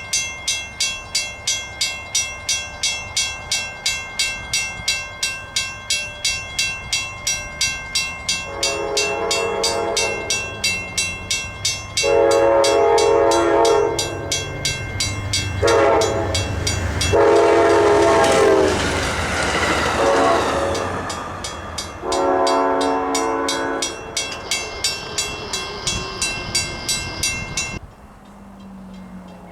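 A diesel passenger train sounds the grade-crossing horn signal over a crossing bell: two long blasts, a short and a long, then one more long blast. The train rushes past near the middle with its horn still sounding. The crossing bell rings in an even rhythm throughout and stops near the end.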